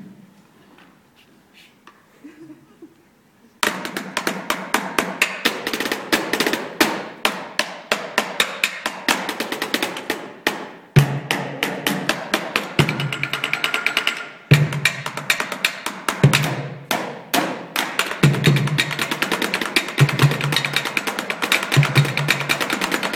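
Drumsticks rapidly playing rhythms on stage chairs, starting suddenly after a quiet few seconds. From about halfway, a low thud from a large plastic pail beaten as a bass drum joins, about once every second and a half.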